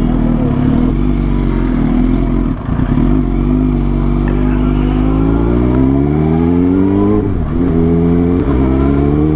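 Suzuki GSX-R sportbike engine pulling away in low gear: the revs hold low for a moment, then climb steadily, drop sharply with a gear change about seven seconds in, and climb again.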